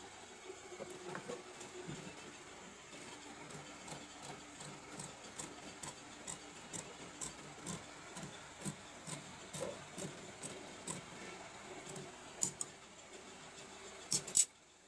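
Large steel tailor's shears snipping through layered shirt fabric, a steady run of cuts about two a second, with a few louder snaps near the end.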